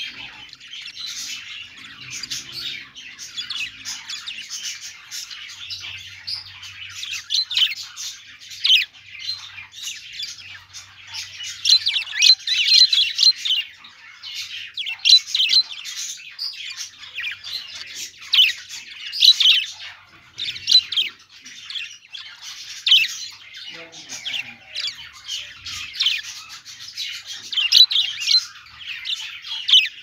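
A flock of budgerigars chattering: a dense, unbroken stream of high chirps and warbles, with louder squawks standing out now and then.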